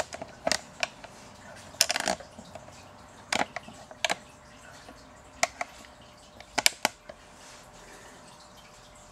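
A dozen or so short, sharp clicks and taps at irregular intervals, some in quick pairs or clusters, over a faint steady room hiss.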